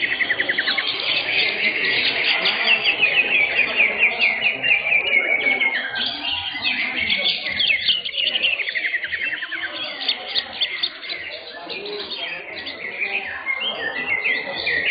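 Several caged greater green leafbirds (cucak hijau) singing at once: a dense tangle of overlapping high chirps and rapid trills.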